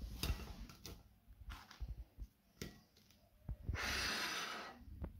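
Handling sounds as slices of garlic bread are laid on a plate of risotto: soft taps and knocks, then a hiss lasting about a second near the end.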